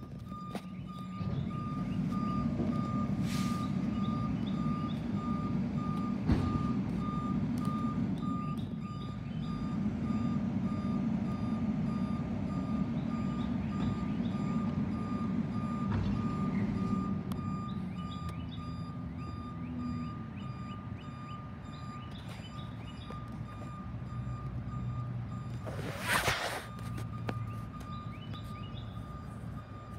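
Garbage truck's reversing alarm beeping in a steady repeating pattern over the truck's engine running, which is louder for the first half. A short, loud burst of hiss comes near the end.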